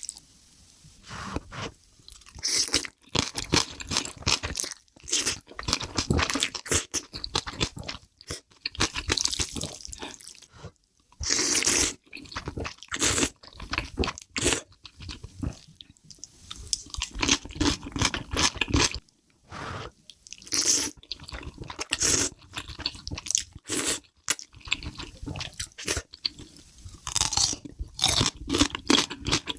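Close-miked chewing and crunching of big mouthfuls of black bean noodles, eggs and kimchi: rapid, irregular wet bites and crunches with short pauses between mouthfuls.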